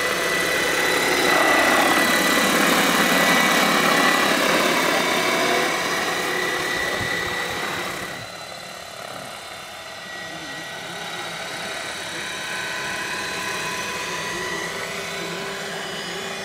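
Radio-controlled model helicopters flying: a steady high whine from the drive and a whoosh of the rotor blades. It is loudest in the first half as a helicopter passes close, then drops abruptly about eight seconds in and carries on quieter.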